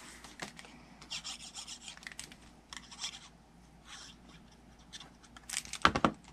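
Cardstock strip being handled and scraped as liquid glue is spread on it with the glue bottle's applicator tip: soft scratchy rubbing in a few patches. A short cluster of louder knocks comes near the end.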